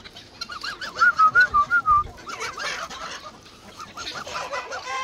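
Farmyard poultry calling: a steady string of short, repeated calls, with a loud quick run of them about a second in.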